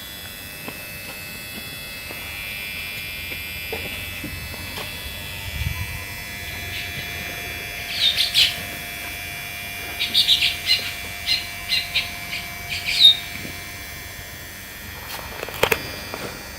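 Baya weavers chirping: a short cluster of high chirps about halfway through, then a quicker run of chirps over the next few seconds, over a steady high-pitched background whine. A few clicks sound near the end.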